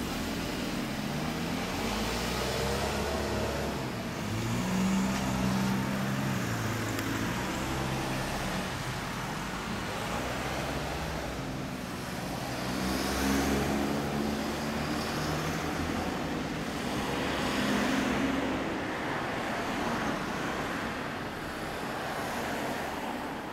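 Road traffic: motor vehicles passing one after another, each engine and tyre rush swelling and then fading over a few seconds. The loudest passes come about five, thirteen and eighteen seconds in.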